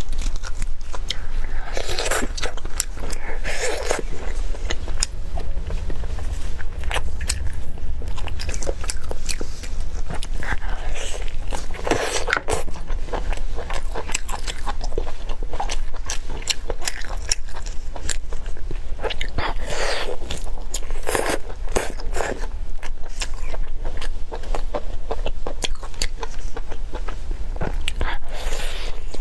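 A person biting into, tearing and chewing steamed chicken leg meat close to the microphone, a steady string of bites and chewing sounds over a low hum.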